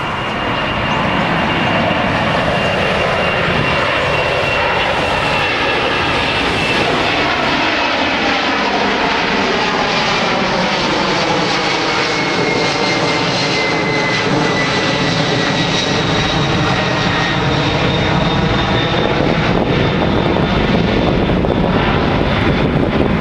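Airplane taking off: loud, steady engine noise with a high whine that slowly falls in pitch.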